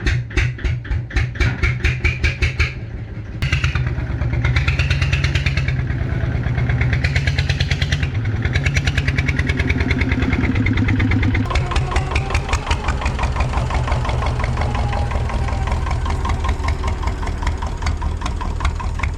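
An engine running with a fast, even pulse; the sound shifts abruptly about three and a half seconds in and again after about eleven seconds.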